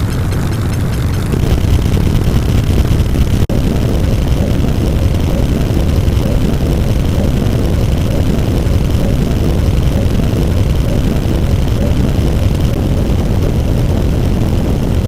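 A loud, steady low rumble like an engine or aircraft sound effect, with a brief cut about three and a half seconds in.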